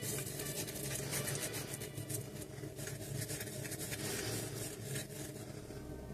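Toothbrush bristles scrubbing dried thermal paste off a laptop's processor chip on the motherboard: a steady run of fine, scratchy brushing strokes.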